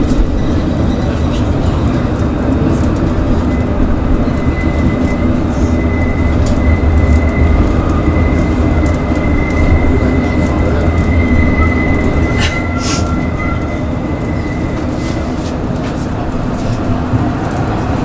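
Tram running along its rails, heard from inside the driver's cab: a steady low rumble, with a thin high whine held from about three seconds in until about fifteen seconds, and a short rattle of sharp knocks just past the middle.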